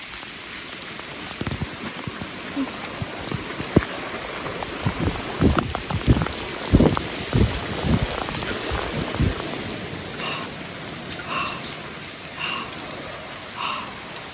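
Rain falling steadily, with scattered sharp knocks of drops striking hard surfaces. Near the end a short call repeats about once a second.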